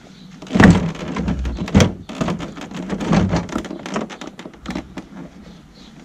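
VW T4 front door card, a moulded plastic interior panel, being pulled and lifted off the door. Two loud thunks come about a second apart near the start, then a run of lighter plastic knocks and rattles.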